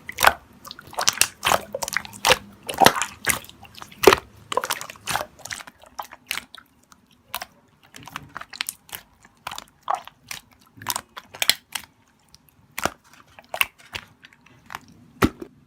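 Slime being squeezed and pressed by hand, giving a run of sharp clicking and popping sounds. The pops come thick and fast at first and more sparsely after about six seconds.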